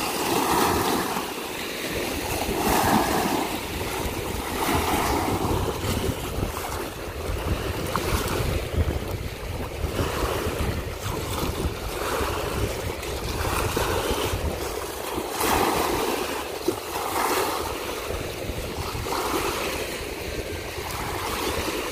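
Small waves washing in over a flat rock shore, a fresh wash swelling about every two seconds. Wind rumbles on the microphone underneath.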